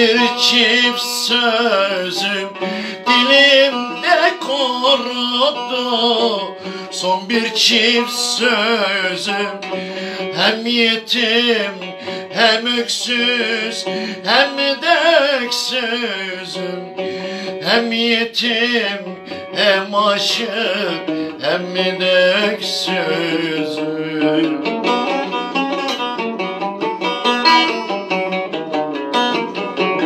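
A man singing a Turkish song over his own strummed and picked cümbüş, a banjo-bodied long-necked lute; near the end the voice stops and the cümbüş plays on alone in a fast plucked run.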